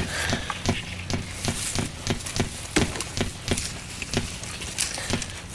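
Footsteps crunching and rustling through pine straw and leaf-litter mulch, in quick irregular steps.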